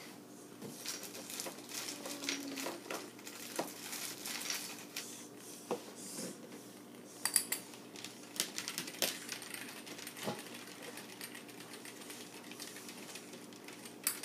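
Light, irregular clicks and clatters of hard plastic toy pieces from a Battling Tops game, tapping on the plastic arena and the table, with a few sharper taps around seven to nine seconds in.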